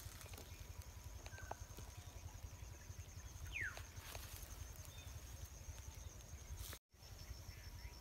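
Quiet outdoor ambience with a low rumble and a faint, evenly pulsing high chirring throughout. A short falling whistle sounds about three and a half seconds in. The sound cuts out completely for a moment near the end.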